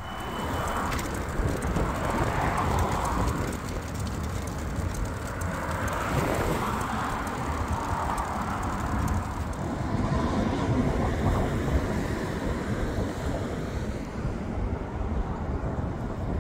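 Steady wind buffeting a phone's microphone as it rides along on a moving bicycle.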